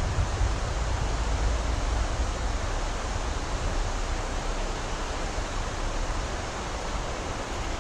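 Steady rushing noise of a swollen river's flowing water, with a low rumble underneath.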